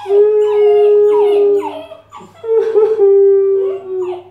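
A puppy howling in two long, level howls of about a second and a half each, with a man's falling, mock-crying wails over and between them.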